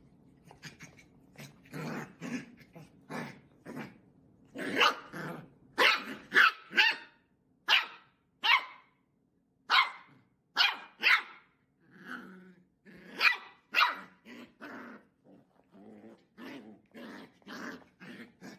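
Puppy barking and growling at a new spiky ball toy in a long run of short yaps, loudest through the middle and softer near the end.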